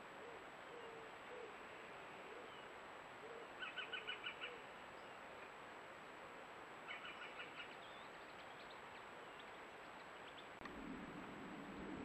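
Green woodpecker calling: a quick run of about seven sharp notes about four seconds in, and a fainter, shorter run about three seconds later, over a steady background hiss. A low rustle near the end.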